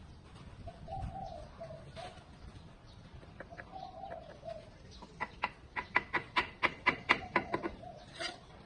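A bird coos low in the background twice in the first half. Then, about five seconds in, a mason's trowel gives a brick a fast, even run of about a dozen sharp taps, about four a second, to settle it into its mortar bed.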